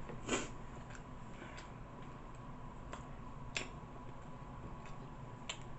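Quiet eating of a toasted cheesesteak sandwich: about five short, sharp mouth clicks and chewing sounds scattered over a few seconds, over a faint steady hum.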